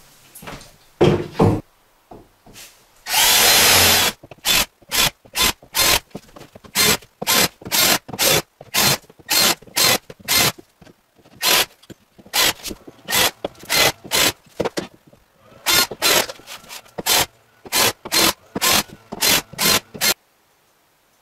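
A couple of knocks as the cement backer board is set against the wall studs, then a cordless drill-driver driving screws through HardieBacker cement board into wooden studs: one longer run of about a second, then a long series of short trigger bursts, two to three a second, that stop about a second before the end.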